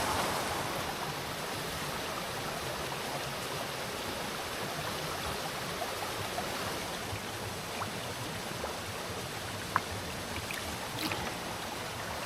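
Small waterfall and stream running steadily, with a few light clicks over it, the sharpest about ten seconds in.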